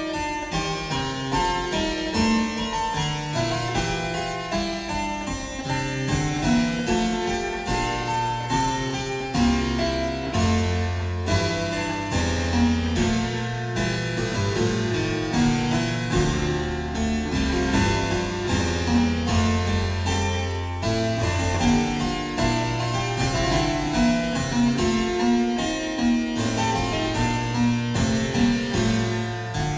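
A keyboard playing an improvised Baroque-style fugue: several voices move in counterpoint over a running bass line.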